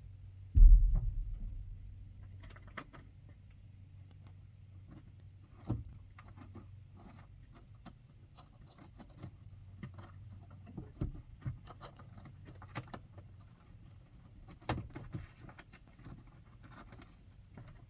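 A heavy thump just under a second in, then scattered light clicks, taps and rubbing of hand tools and a bolt being worked into its threaded hole, over a faint low steady hum.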